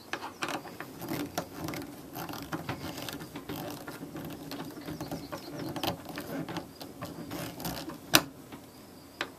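Irregular ratchet-like clicking and light rattling as small fasteners are worked tight on the plastic compost tumbler, with one sharp snap about eight seconds in.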